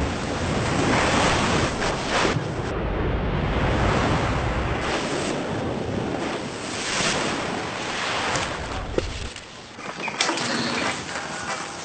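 Ocean surf: a wave breaking with water rushing loudly. About nine seconds in the rushing drops away, leaving a quieter stretch with a few light clicks.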